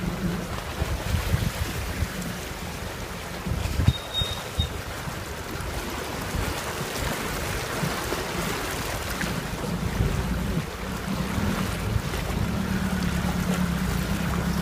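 A 4x4 fording a shallow river, heard from inside the cab: the engine runs low and steady under a continuous rush and wash of water around the wheels. A brief high beep sounds about four seconds in.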